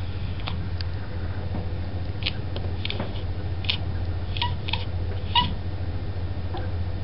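A domestic cat chattering at birds: a string of short, high chirps and clicks, bunched in the middle. A steady low hum runs underneath.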